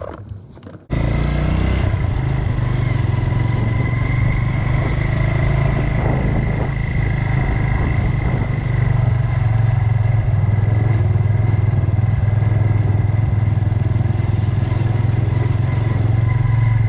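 An engine running steadily, cutting in abruptly about a second in and holding a low, even note.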